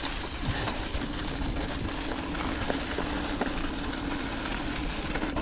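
Mountain bike rolling over a rocky dirt trail: a steady rumble of tyres on dirt and stones, with the rattle of the bike and a few light clicks.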